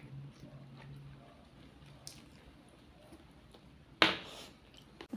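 Soft chewing and wet mouth sounds of a man eating rice with his mouth alone, face down at the plate, with one sharp, louder noise about four seconds in.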